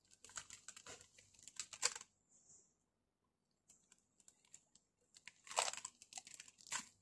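Plastic zipper-seal freezer bag crinkling, with small clicks as its zip track is pressed shut around a ground-beef patty. The crinkling is faint, stops for a few seconds in the middle and starts again near the end.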